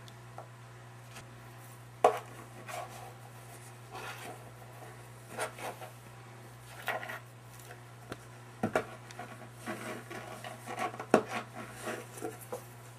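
Cats scuffling at a cardboard box: paws knocking and scraping against the cardboard in irregular short bursts, with the sharpest knocks about two seconds in and near the end. A steady low hum runs underneath.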